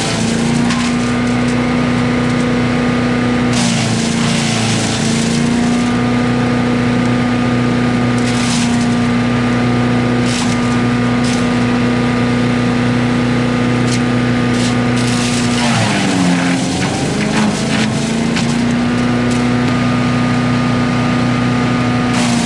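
Wood chipper's engine running steadily at high speed, with short bursts of crackling as wood is fed through and chipped. About two-thirds of the way in the engine drops in pitch as it bogs under the load, then climbs back to speed.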